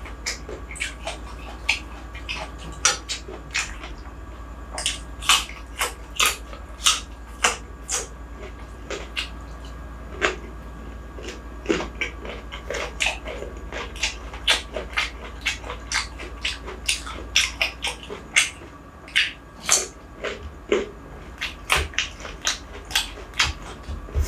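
Close-miked mouth sounds of someone eating rice, curry and carrot by hand: wet chewing, lip smacks and finger-licking clicks, many sharp clicks at irregular intervals.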